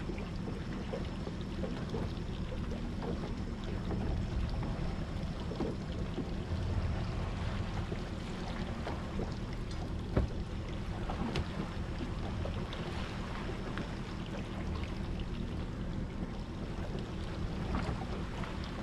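Boat motor running steadily with a low hum, over wind and water noise.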